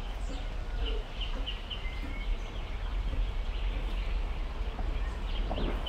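Rural outdoor ambience: faint, high-pitched chirping over a steady low rumble, with no speech.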